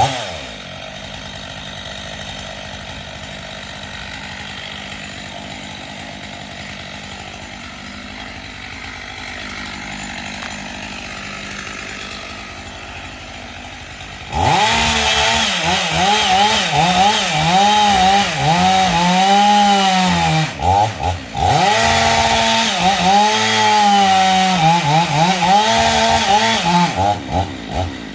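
A steady engine hum for about the first half, then a two-stroke chainsaw comes in loud, its pitch swooping up and down as it revs and bogs under load while cutting, with a few brief drops near the end.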